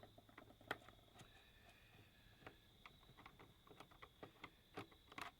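Faint, irregular clicks and taps of screws being worked out of a Verifone Topaz XL casing by hand, a few louder knocks near the end.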